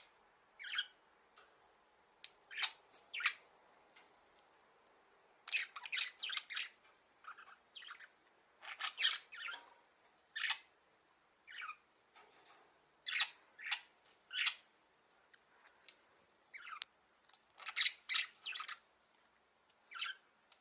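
Budgerigars calling: short, sharp squawks and chirps at irregular intervals, some coming in quick clusters of several.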